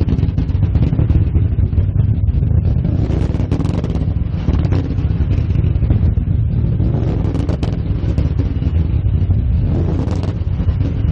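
Daytime firework going off after ignition: a loud continuous low rumble with sharp cracks and bangs scattered through it.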